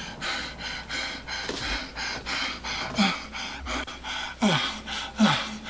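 A man panting hard: quick, ragged breaths, about two or three a second. Several short groans fall in pitch, mostly in the second half.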